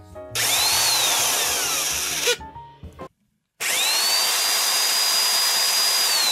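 Electric drill used as a starter, cranking a 3D-printed model gas engine over by its flywheel shaft, in two runs. In the first, the motor whine climbs, then falls away as it slows. After a short silent break, the second run winds up to a steady high whine that holds until the drill starts to slow near the end.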